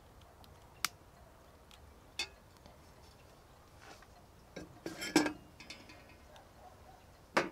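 About half a dozen sharp clicks and light metal clinks, scattered over a quiet background, as a long-nosed utility lighter lights the wick of a metal kerosene camping stove and the stove is handled. The loudest clinks come about five seconds in and at the very end.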